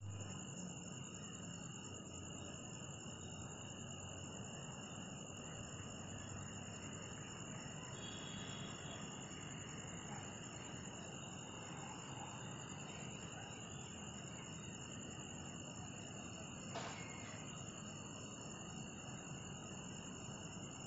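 Crickets trilling steadily in a night-time chorus, a continuous high-pitched ringing at a couple of fixed pitches. One short click about three-quarters of the way through.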